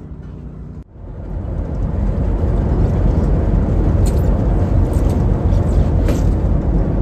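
Loud, steady low rumble of the sightseeing icebreaker Aurora's engines as the ship gets under way from the quay, building over the first couple of seconds, with a few light clicks near the middle.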